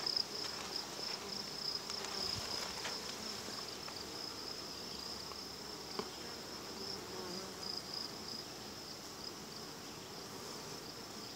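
Honey bees buzzing around an opened hive, with a steady high-pitched insect trill over it and a few faint clicks.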